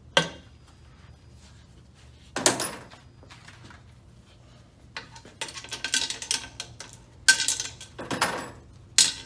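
Metal clinks and clatter of tools and bolts against the JF011E CVT transmission case as its front cover bolts are taken out. It comes in short separate bursts, with a quick run of clicks a little past the middle.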